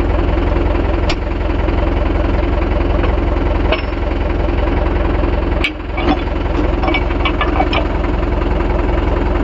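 Mahindra 415 DI tractor's diesel engine running steadily with a low, even throb. A few sharp clicks come through it, one at about one second, one near four seconds and one near six seconds.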